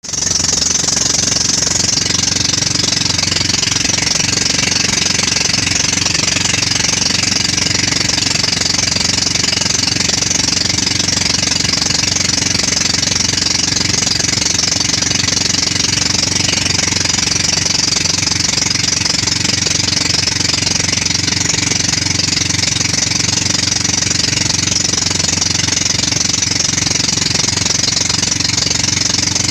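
Engine of a motorized outrigger boat (bangka) running steadily under way, with a steady high hiss of water rushing past the hull.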